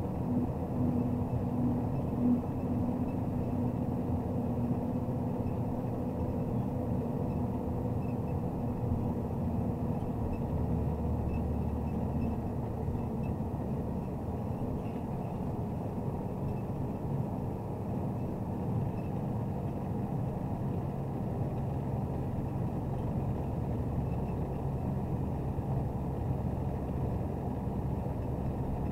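Diesel engine and road noise of a MAZ Zubr truck crane under way, a steady low drone. The engine note shifts about ten seconds in.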